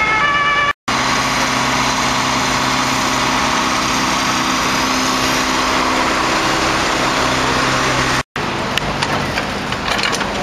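Emergency truck's diesel engine running steadily at idle. Before it, right at the start, the tail of a two-tone emergency siren cuts off. After a cut near the end, a lower engine hum with scattered clicks and clatter takes over.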